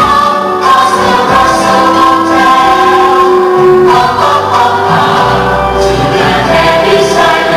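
Choral music: a choir of voices singing long held notes, with a shift in the chord a little over halfway through.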